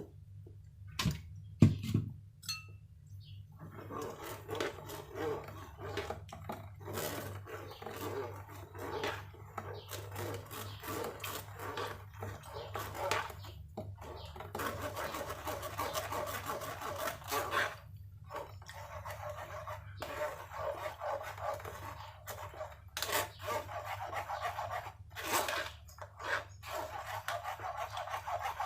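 A countertop blender grinding frozen banana pieces with snake cucumber and lemon for juice. It starts about three and a half seconds in, after a few clicks, and runs unevenly, with knocking from the frozen chunks.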